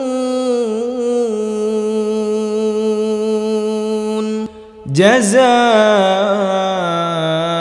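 A single voice chanting Quranic recitation in a melodic tajweed style, holding one long, slightly wavering note that ends about four and a half seconds in. After a short breath the voice comes back with a rising, ornamented note on the next word, then holds it.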